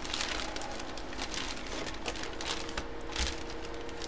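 Plastic packaging crinkling and rustling in irregular bursts as a jersey is handled and unwrapped by hand.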